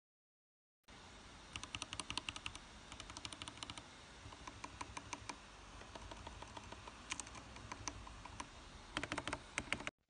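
Mechanical keyboard being typed on: quick runs of key clacks with short pauses between, starting about a second in.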